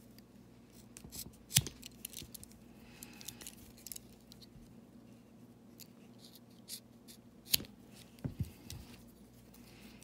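Swiss Army knife scissors snipping through nylon paracord ends: a few sharp snips with quiet handling between, the loudest about a second and a half in and a cluster of snips near the end.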